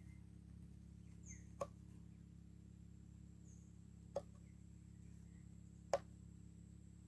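Three sharp knocks, roughly two seconds apart, of a knife blade chopping through onion seedling roots onto a wooden stool top while the roots are trimmed for replanting. Faint bird chirps in the background.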